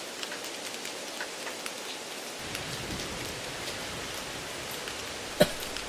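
Steady rain with scattered drop ticks, mixed in as background noise. A low rumble joins it about two and a half seconds in, and there is one sharp tick near the end.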